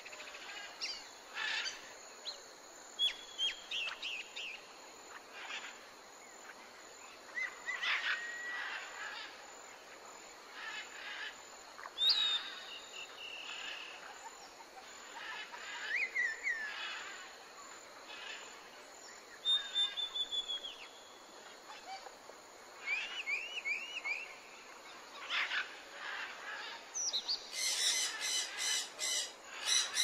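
Several birds calling and singing: scattered chirps, short whistles and falling notes, ending in a fast, loud run of repeated calls.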